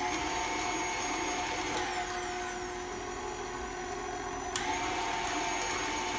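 KitchenAid tilt-head stand mixer running steadily with its electric motor whining as it beats a wet batter in the steel bowl. About four and a half seconds in, a click from the speed lever and the motor's pitch steps up slightly.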